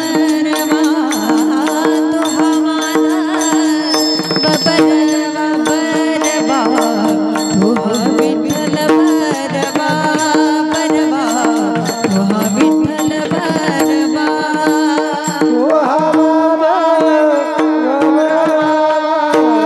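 Marathi devotional bhajan singing with tabla accompaniment over a steady held drone, the melody bending and gliding in Indian classical style.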